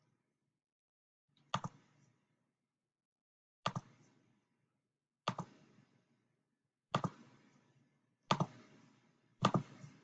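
A series of sharp clicks, six of them spaced about one and a half seconds apart, each a quick double click with a short tail. They come as the circuit's inputs are switched one combination after another for testing.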